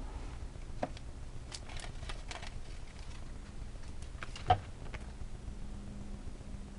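Light handling sounds from paper crafting: a few scattered small clicks and rustles, with one sharper tap about four and a half seconds in.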